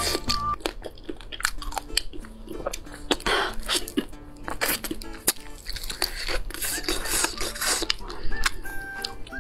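Close-miked wet chewing, sucking and crunching of chicken feet in a thick chilli sauce, heard as many short sharp clicks and two longer wet stretches, over soft background music.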